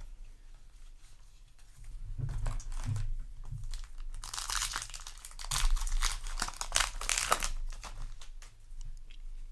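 Foil wrapper of a Yu-Gi-Oh! booster pack crinkling as it is handled and torn open. It starts about two seconds in and is densest in the middle of the stretch, then dies down near the end.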